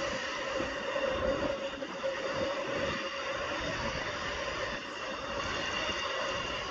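Autorack freight cars rolling past on the rails: a steady rumble of wheels on track, with a constant whining tone running through it.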